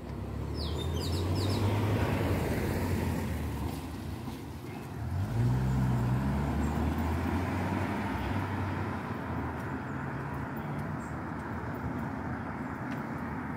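Road traffic: car engines and tyres on a wet road as vehicles pass, swelling twice, about a second in and again about five seconds in. A bird chirps briefly about a second in.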